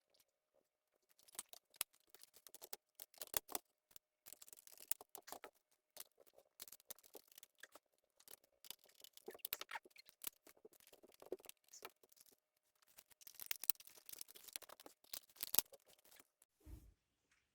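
Irregular quick clicks, taps and scratches of small hard parts being handled during bench electronics work, with busier stretches about three seconds in and again near the end. A faint steady whine runs underneath and stops about a second before the end.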